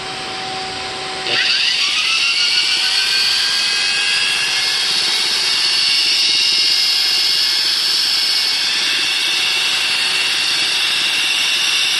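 A shop vac runs steadily. About a second in, a drywall sander switches on, its motor whining upward as it spins up, then runs steadily with its 60-grit pad sanding the pool's surface while the shop vac draws off the dust.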